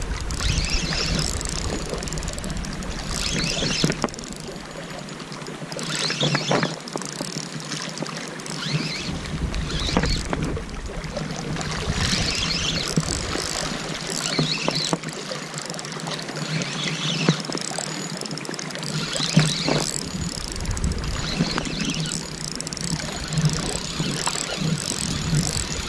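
Wind buffeting the microphone in gusts, a low rumble that dies away twice for several seconds and comes back, over a steady wash of water along a rocky shore. A few sharp clicks stand out.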